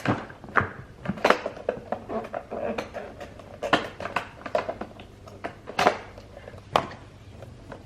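Hard plastic vacuum cleaner parts being handled, clicking and knocking together in an irregular series, with a few louder knocks.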